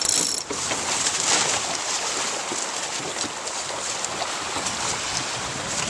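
Steady rush of wind and water aboard a sailboat under way, with wind blowing on the microphone.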